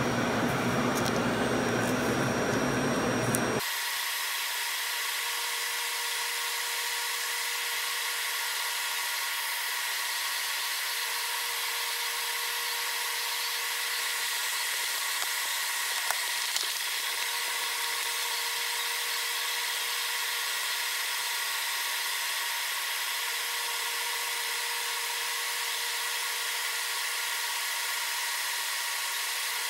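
CAMaster CNC machine driving a Donek drag knife through a cut: a steady high-pitched whine and hiss, with a lower tone that switches on and off every few seconds as the machine moves. A louder rushing noise cuts off abruptly about four seconds in.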